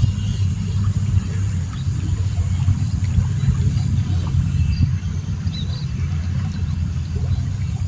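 A steady low rumble, with a few faint high chirps about five and a half seconds in.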